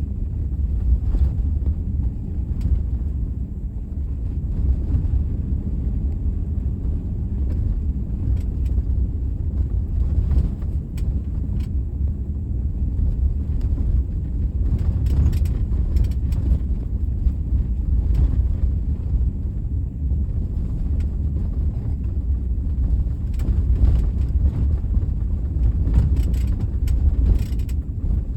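Car driving over a bumpy road, heard as a steady low road rumble. Irregular sharp knocks or rattles come with the bumps, in bunches about a third of the way in, around halfway and near the end: the unwanted noise the car makes on rough surfaces.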